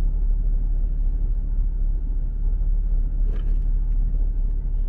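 Steady low rumble of a camper van on the move: engine and road noise with no breaks.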